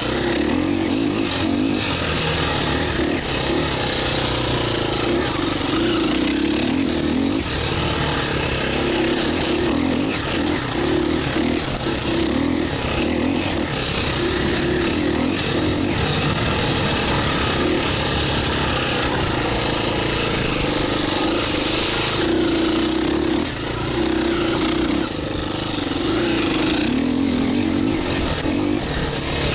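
2017 KTM 350 EXC-F's single-cylinder four-stroke engine running as the dirt bike is ridden, the throttle opening and closing so the engine note swells and falls every second or so.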